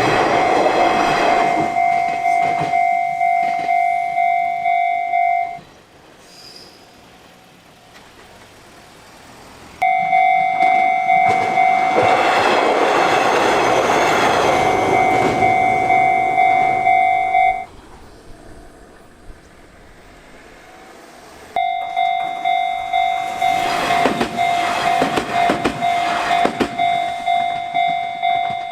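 Japanese railroad crossing alarm ringing its repeated 'kan-kan' tone about twice a second, while trains pass with a rushing rumble and clatter of wheels. The alarm stops about five and a half seconds in, rings again from about ten to seventeen seconds, and starts once more about twenty-one seconds in.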